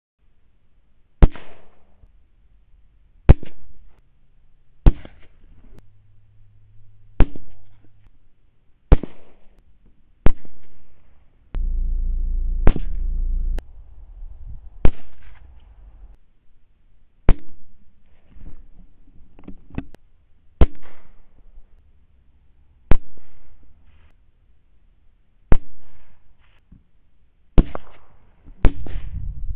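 A quick run of rifle shots at rats, one about every two seconds, each a sharp crack with a short tail. Around twelve seconds in, a loud low hum runs for about two seconds.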